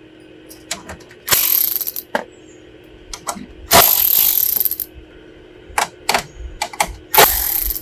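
Cordless Milwaukee power driver with a 7/32 socket running out the grille-shell fasteners in three short bursts, with sharp clicks and clinks between them.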